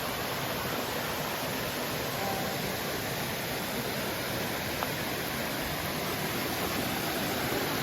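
Rain-swollen stream cascade rushing, a steady, even roar of water.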